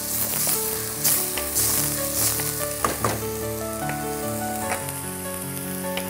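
Taro cubes frying in a pan, giving a steady sizzle that is strongest in the first half, over soft background music of held notes.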